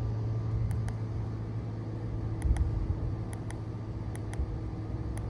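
Small plastic push button on an LED headlamp being clicked in quick double presses, about five pairs, switching the lamp's modes. A steady low hum runs underneath.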